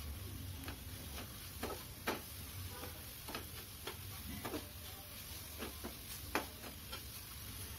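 Metal spatula clicking and scraping against a steel frying pan as greens, onion and chillies are stirred while sautéing: light irregular knocks, about one or two a second, over a low steady hum.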